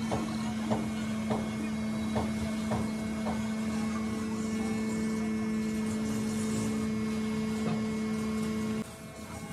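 A steady electric machine hum with light knocks about every half second in the first few seconds. A second, higher tone joins about four seconds in, and both stop abruptly near the end.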